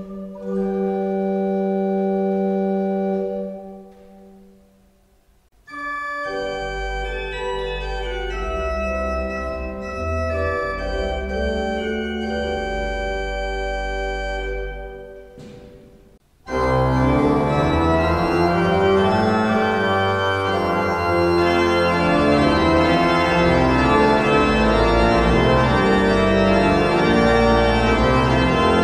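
Church pipe organ playing: a held chord that dies away about four seconds in, then a quieter passage over a deep pedal bass. After a short break about halfway through, a much louder and brighter full-organ registration comes in.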